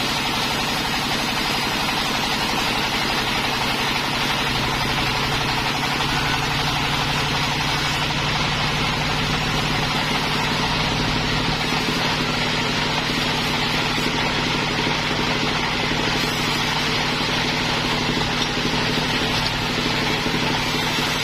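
Sawmill machinery running steadily: an engine-like hum with a constant noisy hiss over it, unchanging throughout.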